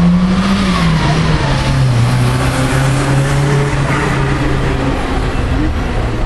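Car engine running as it passes along the street. Its pitch rises briefly, drops, then holds steady until about five seconds in, over general traffic noise.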